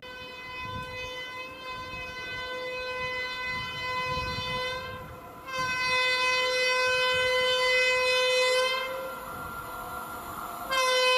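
WAP-7 electric locomotive sounding its air horn as it approaches, a steady single note in long blasts: one of about five seconds, a louder one of about three seconds after a short break, and another beginning near the end.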